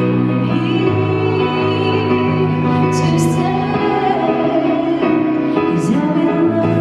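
A woman singing a slow ballad into a microphone, backed by a live acoustic band with violin and keyboard; the backing chords change about every three seconds.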